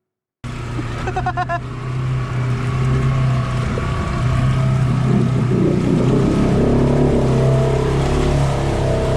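Side-by-side UTV engine running hard under load as it bogs through deep mud and water, cutting in suddenly after a moment of silence.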